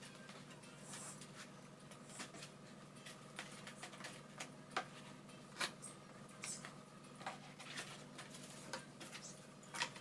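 Scattered light clicks and taps from hands handling small foam and balsa model-aircraft parts, irregular and with a few sharper knocks, over a faint steady hum.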